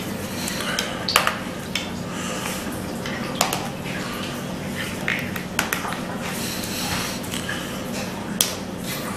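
Sharp metal clicks and light taps as a steel barrel band is worked along the barrel of an M91/30 Mosin Nagant rifle, its retaining spring held down, a handful of times spread through, over a steady low hum.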